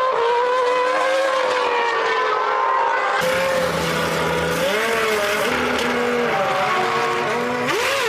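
2001 Formula One cars' 3-litre V10 engines screaming at high revs, held steady and slowly falling at first. About three seconds in the sound cuts to another car whose pitch climbs and drops with the gear changes, rising sharply near the end.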